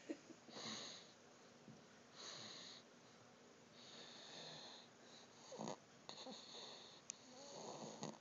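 Snoring in slow, regular breaths about every two seconds, each a soft hissing rush of air, with a few shorter, rougher breaths in the second half.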